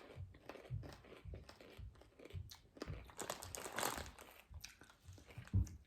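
Mouthful of crunchy flavoured popcorn being chewed, a run of small irregular crunches, with a soft low thump near the end.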